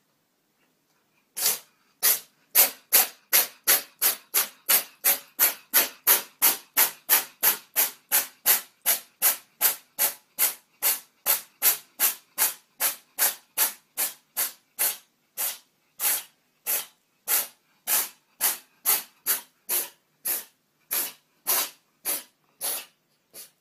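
A cat sneezing in one long unbroken fit: dozens of short, sharp sneezes starting about a second and a half in. They come at about two to three a second, spacing out a little toward the end.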